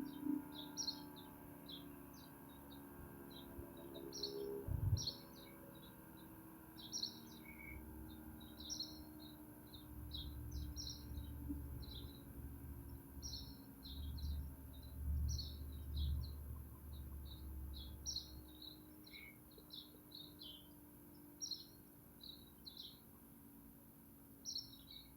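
Birds chirping in quick, high, repeated bursts, fairly faint, with a single low thump about five seconds in and a low rumble from about ten to eighteen seconds in.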